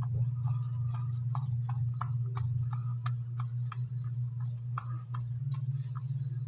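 Paintbrush stroking back and forth on a wall, a short brushing stroke about three times a second, over a steady low hum.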